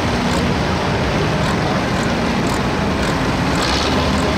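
Pulling tractor's diesel engine running loudly and steadily while hitched to the weight sled, a continuous low drone.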